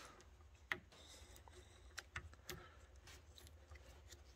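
Near silence with a few faint clicks and taps as a Swiss Army knife blade cuts and works an old, dried-out rubber handlebar grip off the bar. The sharpest click comes about three-quarters of a second in.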